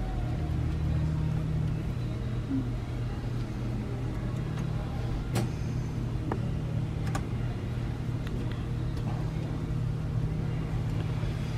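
Steady low hum, with two sharp light clicks about five and seven seconds in.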